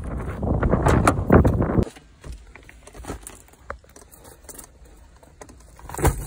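Car keys jangling and a car door being pulled open, a dense rustle for the first two seconds, then quieter small clicks and rustling as bags are shifted on the car seat, with a short sharp knock near the end.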